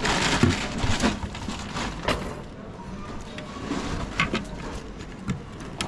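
Several sharp metal clinks and knocks from a hinged wire fish-grilling basket being opened and handled, with a rush of noise in the first second.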